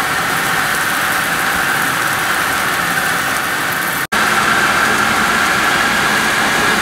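Steady sizzling of food pan-frying in oil: Brussels sprouts browning in a frying pan, then, after an abrupt cut about four seconds in, chicken breasts sizzling in a pan.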